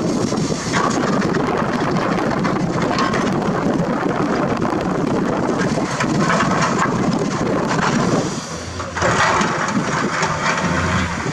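Komatsu PC210-10 excavator working limestone: its diesel engine running under load with a rough crunching of rock throughout. The sound drops briefly a little after eight seconds in, then the engine hum steadies.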